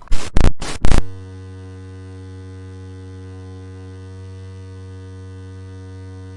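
Three very loud, distorted bursts in the first second, then a steady low electric buzzing hum that holds unchanged for about five seconds.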